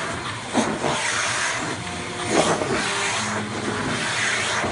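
Vacuum cleaner running steadily with its hose nozzle drawn over a long-haired cat's fur. The suction noise swells and shifts briefly twice, about half a second in and again past two seconds.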